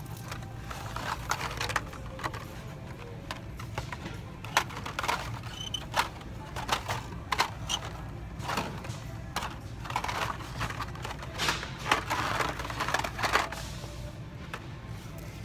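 Hot Wheels blister-card packages clicking and rustling as they are flipped through on metal store pegs: a run of irregular plastic clicks over a low steady hum.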